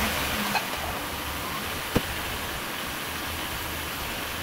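A just-started 2002 Oldsmobile Silhouette's 3.4-litre V6 idling steadily as it warms up after a coolant refill, with one short click about two seconds in.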